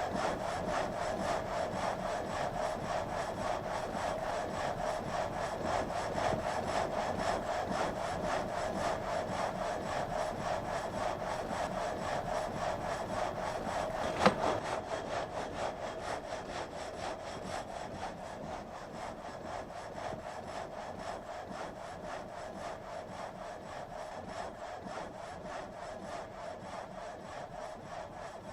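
Water-wheel-driven vertical frame saw cutting timber, its blade rasping steadily stroke after stroke. A single sharp knock comes about halfway through, and the sawing grows a little quieter toward the end.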